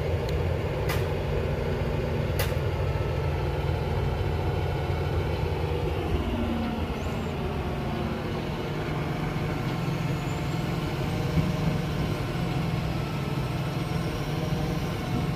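Boom truck crane's engine running steadily under load, its pitch sliding down about six seconds in as the revs drop. Two sharp knocks sound in the first few seconds.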